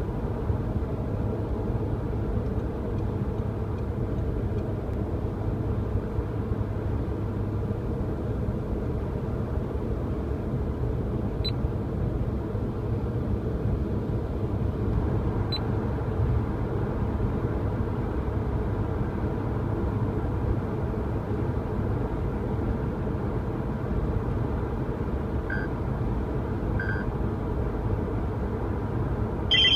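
Steady car cabin road and engine noise while cruising at about 120 km/h, with a couple of faint short beeps near the end.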